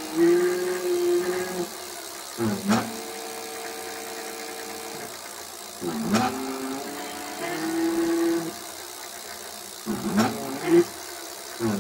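Electric bike rear hub motor run by an aftermarket controller, whining as it spins up and slows down several times. Between changes the whine holds a steady pitch for a second or two, and there are quicker short spin-ups near the end.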